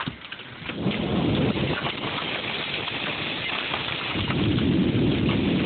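Hailstorm: hail and rain pelting the ground and roof with many sharp clicks of stones striking. The downpour grows heavy about a second in and heavier again about four seconds in.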